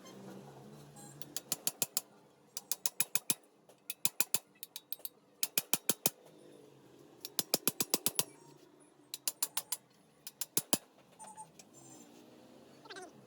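Repeated short bursts of rapid, sharp mechanical clicking, four to eight clicks at a time, like a hand tool being worked in strokes. A brief sliding squeak comes near the end.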